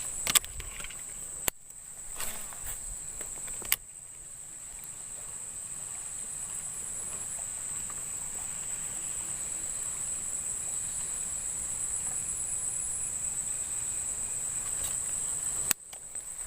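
Steady high-pitched drone of insects, with a few sharp clicks in the first four seconds and one more near the end.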